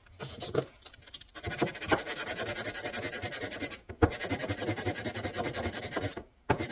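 240-grit sandpaper on a file, wetted with WD-40, rubbed back and forth across a flat on a steel rifle barrel: fast, steady scratching that starts about a second in. There is one sharp knock near the middle and a brief pause near the end.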